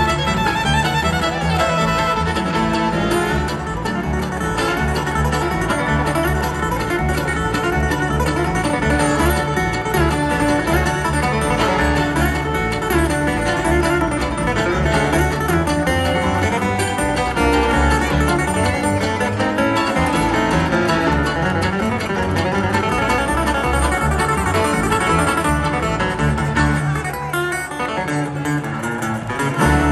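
Bluegrass band playing an instrumental live: flatpicked acoustic guitar leading over banjo, fiddle and upright bass.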